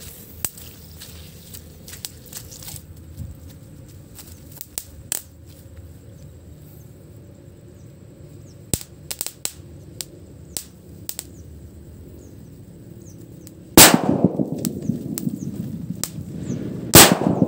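Two homemade triangle firecrackers exploding about three seconds apart. Each is a sharp, very loud bang followed by a rumbling echo that dies away.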